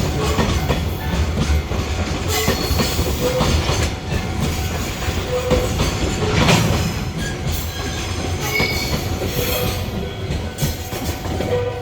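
Container freight train rolling past on the rails: a steady rumble with wheels clicking over rail joints and short, high wheel squeals.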